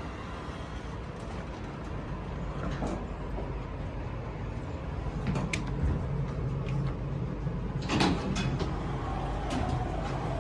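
Otis passenger lift in operation: a steady low hum with scattered mechanical clicks and knocks, and a louder clatter about eight seconds in, like the sliding doors working.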